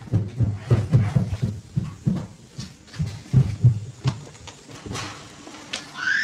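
A run of dull, low thuds at about three a second, irregular and fading out after a few seconds. Near the end a high tone rises and holds.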